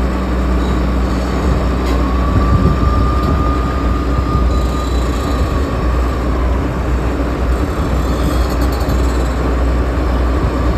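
Furukawa HCR12-EDSII crawler rock drill's diesel engine running under load as the machine tracks onto a steel lowbed trailer, with a steady low drone. A thin squeal comes in about two seconds in and fades out some four seconds later.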